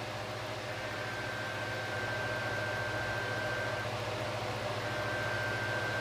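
Steady hiss and low electrical hum, with a thin, steady high-pitched whine that drops out for about a second midway.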